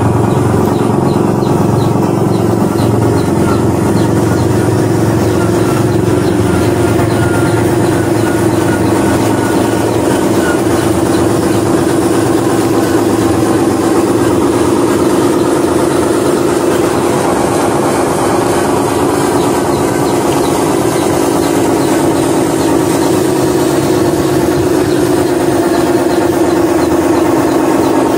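Diesel truck engine sound running steadily at an even, low pace: the simulated engine sound of a radio-controlled model Fuso dump truck.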